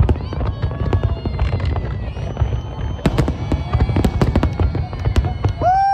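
Fireworks display: a dense, rapid run of bangs and crackles over a continuous low rumble of bursting shells, with some thin whistling tones gliding up and down, and a strong held whistle-like tone coming in near the end.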